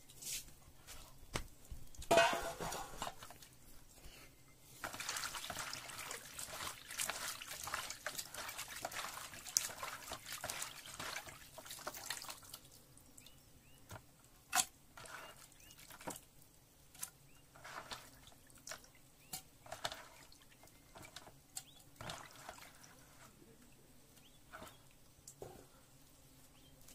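Hands sloshing and rinsing freshly cleaned small fish in a plastic basin of water, with a loud splash about two seconds in and steady sloshing for several seconds after. Then the fish are lifted out a few at a time, with short drips and small splashes as water runs back from the fingers.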